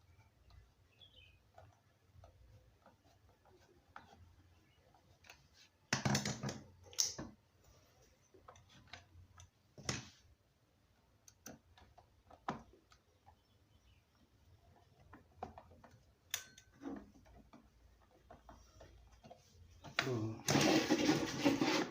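Hands working on a fan regulator's wiring and fitting: scattered small clicks and knocks of plastic parts and tools being handled, with a few louder knocks, then a longer noisy scrape near the end.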